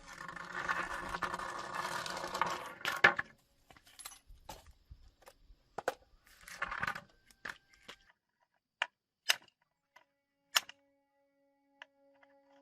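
A rough scrape lasting about three seconds, then a string of separate sharp metallic clinks and knocks with short quiet gaps between them.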